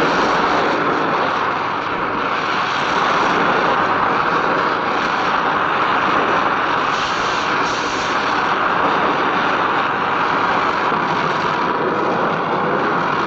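Gas welding torch flame hissing steadily and loudly.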